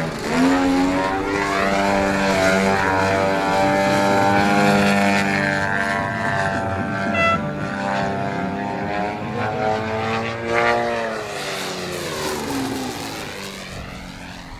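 Large-scale RC aerobatic plane's ZDZ 97cc two-stroke petrol engine with an RE3 tuned pipe, running hard in flight. Its pitch rises and falls as the throttle is worked through the manoeuvres, and it grows fainter near the end.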